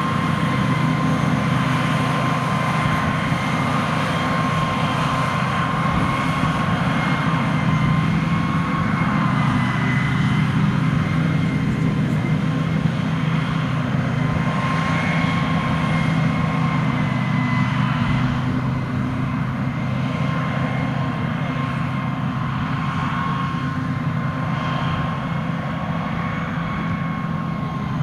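Heavy diesel farm machinery running steadily, a low engine rumble with a steady high-pitched whine over it; slightly quieter from about two-thirds of the way in.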